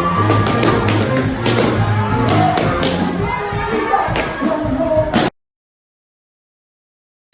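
Loud music with a steady beat and bass line, cutting off abruptly to dead silence a little over five seconds in.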